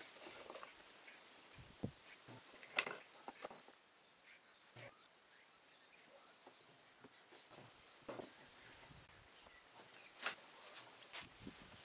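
Half a dozen short, light knocks of pine boards being handled and set down on a wooden workbench during glue-up, over a steady, high insect chirr in the background.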